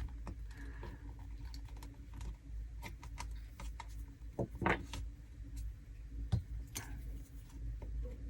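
Scattered small clicks and taps of plastic laptop parts being handled and worked apart during screen disassembly, with a few sharper clicks about halfway through and again later.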